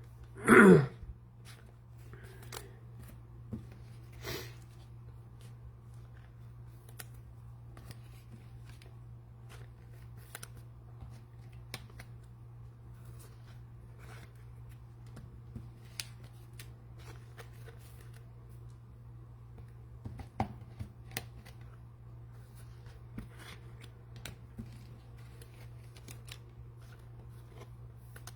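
Trading cards and pack wrappers being handled: scattered soft clicks and rustles over a steady low hum. About half a second in, a brief loud sound falls in pitch.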